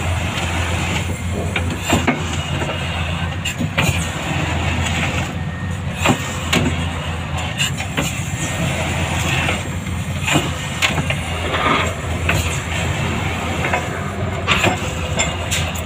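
Vibratory pile driver running as it drives a steel sheet pile into the ground: a steady low hum from the vibrating head and its machine, with scattered sharp clicks and knocks.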